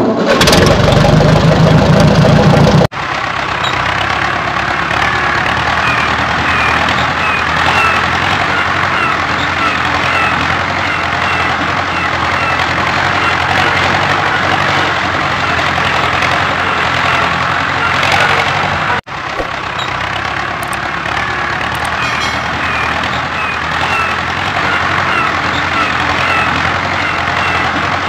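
Tractor engine running steadily. A louder, deeper stretch cuts off abruptly about three seconds in, and the sound breaks off sharply again and resumes a little after the middle.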